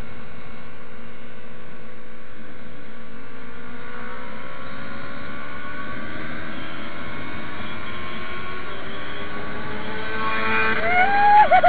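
Motorcycle engine running steadily, its pitch drifting slowly upward in the middle, then a quick rev up and back down near the end.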